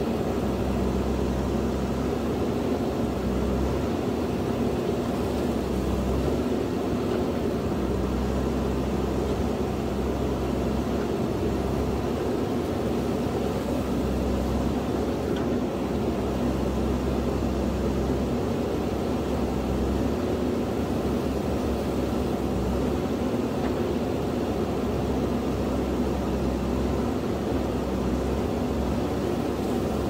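JCB backhoe loader's diesel engine running under load while the backhoe arm digs out bamboo roots. The deep engine note swells and eases every few seconds as the hydraulics work.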